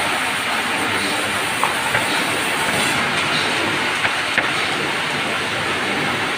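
Large vertical band saw ripping lengthwise through a Merbau log as the log is fed into the blade. It gives a steady, dense machine noise with a few sharp clicks.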